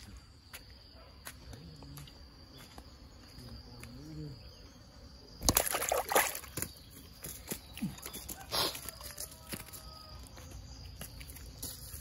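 Water sloshing and splashing in a loud burst about five and a half seconds in and again more briefly near nine seconds, over a steady high insect drone.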